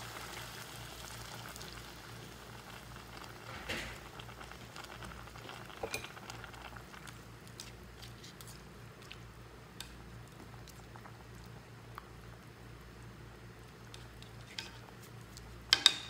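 Water pouring into a pot of chicken stew, tailing off in the first second, then a spatula stirring the stew with small scrapes and clicks against the pot. A few sharp knocks of the spatula near the end.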